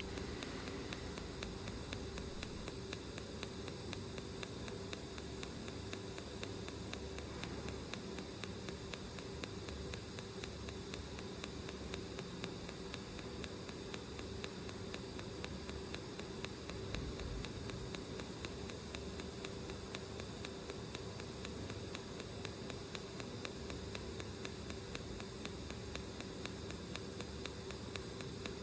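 TIG welding arc on stainless steel, running on DC: a steady, even hiss with a faint hum.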